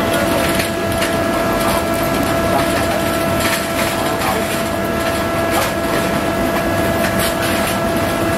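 Steady mechanical hum with a constant whine over a loud, even din, with scattered light clicks.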